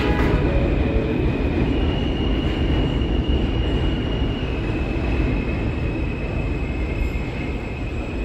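R160 subway train's doors shut with a knock, then the train pulls out of the station: a steady low rumble of wheels and running gear with a thin high electric whine from its propulsion that steps in pitch, slowly fading as it moves away.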